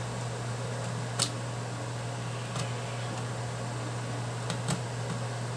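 Needle-nose pliers working on components of a car engine ECU circuit board: a few sharp small metal clicks, the loudest about a second in, over a steady low hum.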